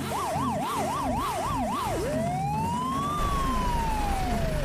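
Police car siren sound effect: a fast yelp of about seven quick up-and-down sweeps in the first two seconds, then one slow wail that rises and falls.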